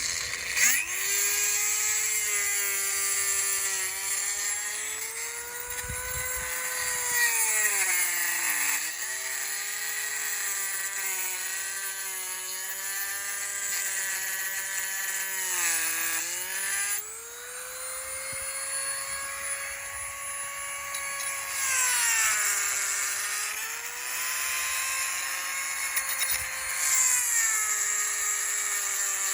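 Dremel rotary tool grinding out the inside of a hole to enlarge it for a bonnet release cable fitting. Its high whine spins up at the start, then dips in pitch several times as the bit bites and rises again, over a steady grinding hiss.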